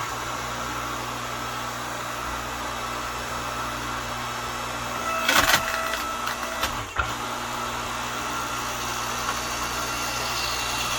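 Earthquake 5-ton electric log splitter's motor and hydraulic pump starting up and running steadily under load as the ram drives a wet, green log into the wedge. A few sharp cracks come about five and a half and seven seconds in as the wood gives way.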